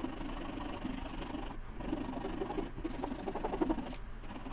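Flush trim saw cutting glued-in pecan wood plugs off flush, rasping back and forth in quick short strokes on hard wood, with three brief pauses between bouts of strokes. The wood is hard.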